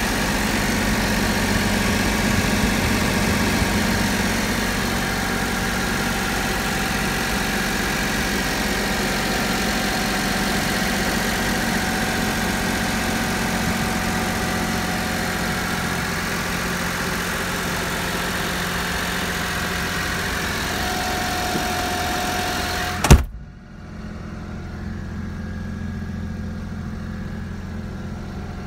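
Mitsubishi Minicab kei truck's small three-cylinder engine idling steadily, heard close up with the engine cover open. Near the end there is one loud thump, after which the engine hum continues much quieter and muffled.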